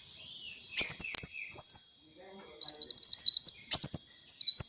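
A sunbird singing vigorously: two bouts of high, rapid chirps, the second a fast run of upward-flicked notes followed by slurred, falling whistles. A few sharp clicks cut in between the phrases.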